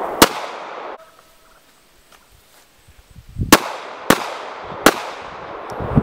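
Glock 43 9mm pistol fired four times: one shot just after the start, then, after a pause of about three seconds, three shots in quick succession about two-thirds of a second apart. Each shot is followed by a long fading echo.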